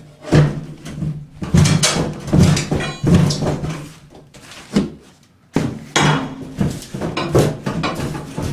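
Heavy bathtub being pried and shifted out of its alcove: a run of loud, irregular hollow knocks and scrapes as it bangs against the framing and subfloor, with a short lull about four seconds in.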